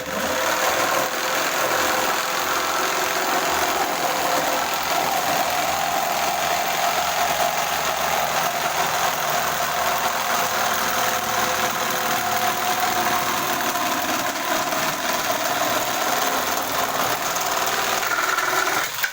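Corded electric jigsaw running at speed setting 3, its reciprocating blade sawing through two stacked sheets of 5 mm plywood, 10 mm in all, with a steady buzzing whine. It stops near the end as the cut goes through.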